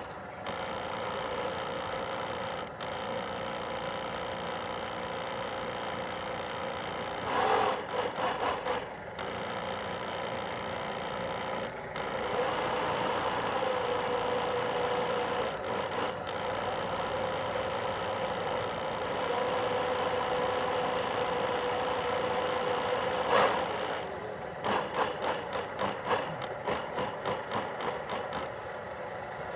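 The DC 775 electric drive motor and onboard water pumps of a radio-controlled model fishing boat running, heard from aboard the model: a steady motor whine with a hum. About seven seconds in, and again from about 23 seconds, there are stretches of quick fluttering, rattling pulses.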